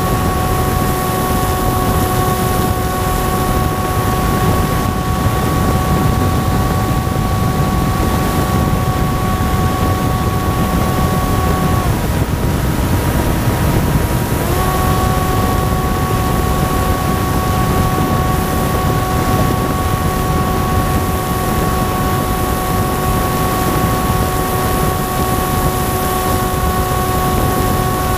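Electric motor and propeller of an RC plane running at a steady pitch, heard through the onboard camera's mic with heavy wind rush. About twelve seconds in the pitch drops slightly and comes back up about two and a half seconds later, as with a short throttle change.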